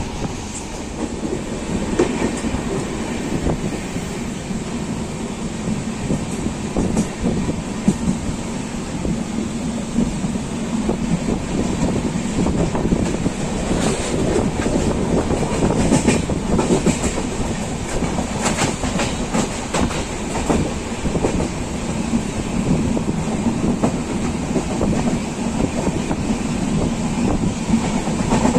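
Express passenger train running at speed, heard from the open doorway of a coach: a steady running noise from the wheels and track, with wheels clicking over rail joints now and then.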